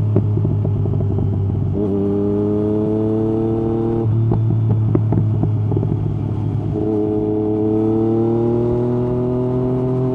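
Yamaha MT-09 SP's inline three-cylinder engine through an Akrapovic exhaust with the dB killer removed, pulling with the revs climbing steadily. About four seconds in it eases off, with a few sharp clicks. About seven seconds in it pulls and climbs again.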